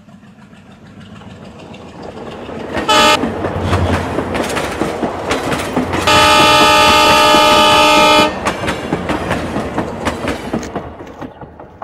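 A diesel locomotive and its train approach and pass close by, the rumble and wheel clatter building, then fading near the end. The horn sounds once briefly about three seconds in, then in one long blast of about two seconds.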